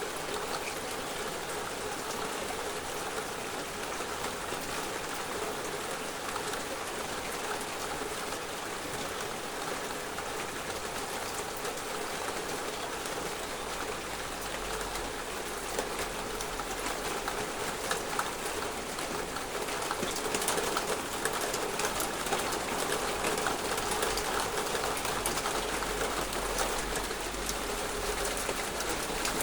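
Heavy rain pouring down in a steady hiss of drops. It grows a little louder about two-thirds of the way through, with more separate drop taps heard.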